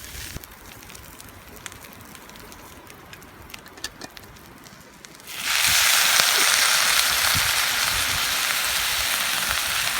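Deep campfire frying pan, with a few faint clicks at first; about halfway through, food or liquid goes into the hot pan and it starts sizzling loudly and steadily.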